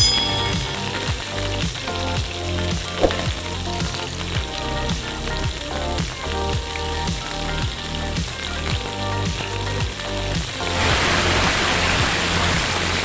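Food frying in oil in a pan, a steady sizzle under background music with a regular beat; about eleven seconds in the sizzle suddenly grows louder and brighter.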